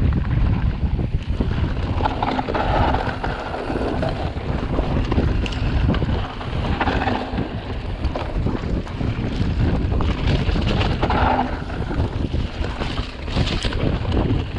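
Wind buffeting the microphone during a fast mountain-bike descent, with a steady rumble and scattered knocks and rattles from the bike riding over the trail.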